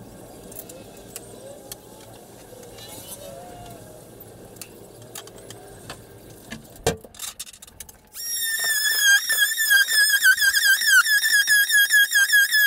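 A small handheld power tool starts about eight seconds in, a loud high whine whose pitch dips and recovers again and again as it works against the material. Before it there is only faint low room noise and a single sharp click.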